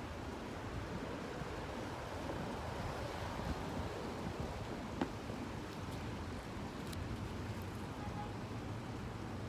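Wind gusting over the microphone: a steady rushing noise with a low rumble, and one sharp click about five seconds in.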